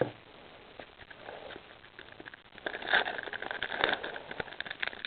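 Crinkling and crackling of a Pokémon booster pack's foil wrapper being opened and cards handled: a quick run of small crackles, sparse at first and busier from about three seconds in.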